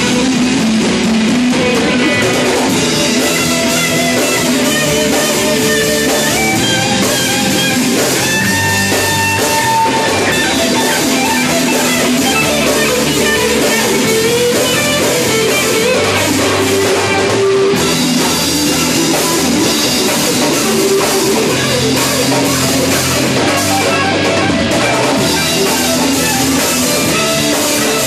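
Rock band playing, with guitar over a drum kit.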